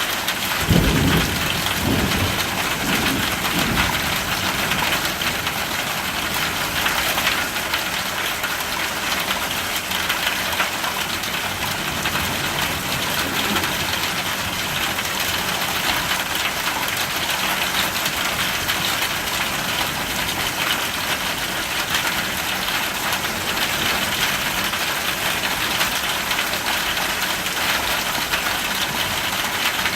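Steady heavy rain falling. A low roll of thunder rumbles from about a second in and fades out a few seconds later.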